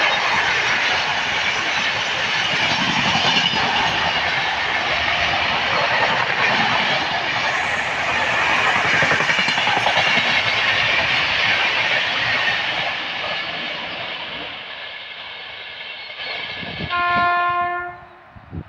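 Indian Railways express train passing at high speed, its wheels running over the rails in a loud steady rush that fades away over several seconds. Near the end, one short horn blast.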